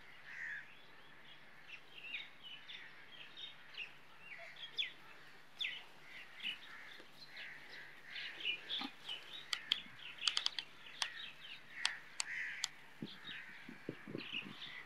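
Outdoor bird chorus: many small birds chirping in short calls, with crows cawing now and then. A cluster of sharp clicks comes a little past the middle.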